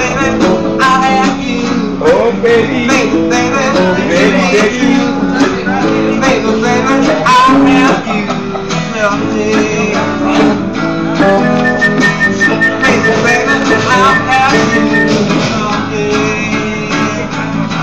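Electric guitar played live, a busy run of quickly picked notes with one long held high note a little past the middle.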